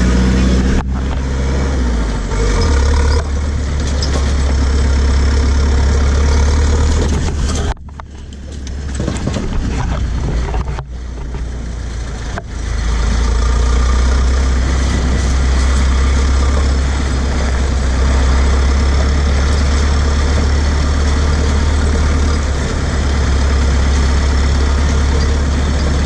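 A 1945 jeep driving on a rough dirt road, heard from a camera mounted on the vehicle: a heavy, steady low rumble of engine and road and wind noise. The sound cuts abruptly about eight seconds in and is quieter for a few seconds before the full rumble returns.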